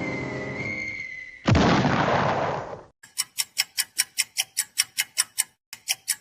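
Cartoon sound effects: a falling whistle ends in a short explosion-like burst about a second and a half in. It is followed by a rapid, even run of sharp ticks, about five a second, with one brief break near the end.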